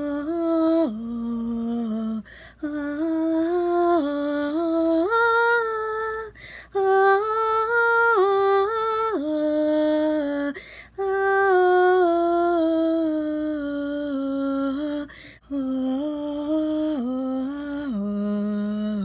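A single voice sings a wordless tune a cappella, in long held notes that step up and down, pausing briefly for breath about every four seconds.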